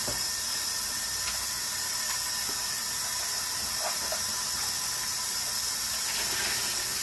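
Kitchen tap running steadily into the sink as raw meat is rinsed under it, an even hiss of running water.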